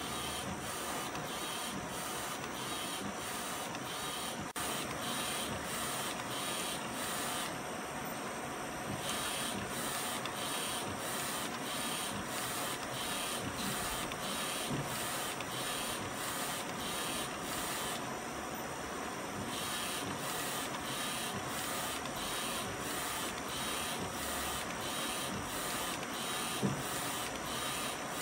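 ArtisJet UV flatbed inkjet printer running, its print-head carriage shuttling back and forth over the bed. It makes a steady mechanical whir with a regular high hiss pulsing about twice a second, which pauses briefly twice.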